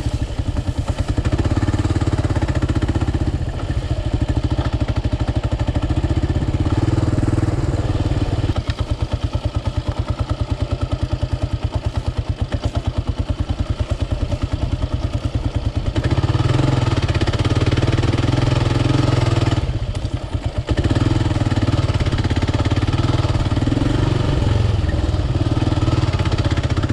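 Kawasaki KLR 650's single-cylinder four-stroke engine running at low speed on a rough dirt track, the throttle easing off and opening again a few times, with a quieter stretch roughly a third of the way through.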